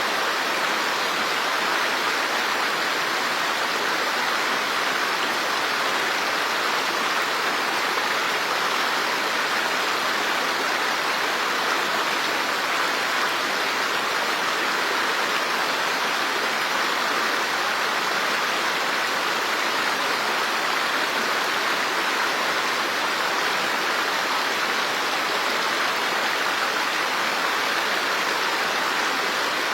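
Running water rushing steadily, an even, unbroken hiss like a stream or small waterfall.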